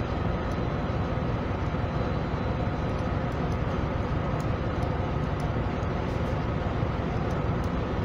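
Steady background rumble and hiss that does not change, with faint light ticks from about three seconds in as a screwdriver works the pressure switch's adjusting screw.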